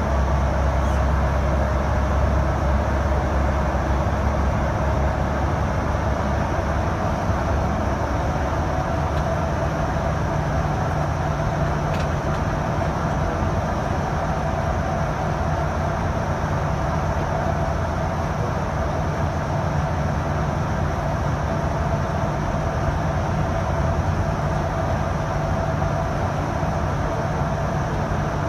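Steady road and engine noise of a car driving at about 80 km/h through a long road tunnel, heard from inside the cabin. The low drone shifts slightly higher about ten seconds in.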